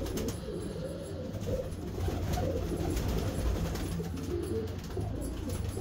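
Domestic pigeons cooing in a loft, an uneven overlapping murmur of coos over a low rumble.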